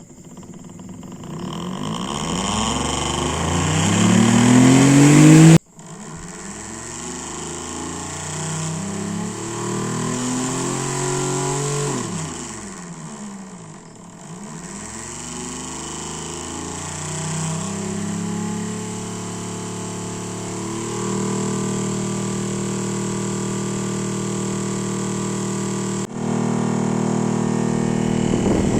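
775 DC motor spinning a fan blade: its whine rises in pitch as it speeds up, cuts off suddenly about five seconds in, then runs again, its pitch sagging around the middle and recovering before holding steady.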